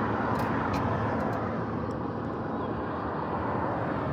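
Steady road noise of a car driving past, with a few light clicks in the first second or so.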